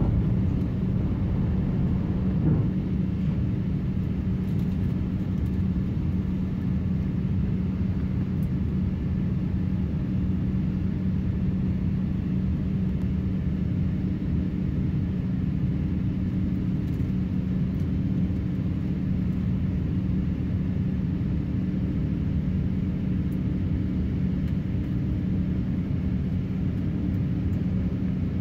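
Airbus A350-900 cabin noise during the climb after takeoff: the steady low roar of its Rolls-Royce Trent XWB engines and the airflow, with a constant hum underneath, heard from a seat inside the cabin.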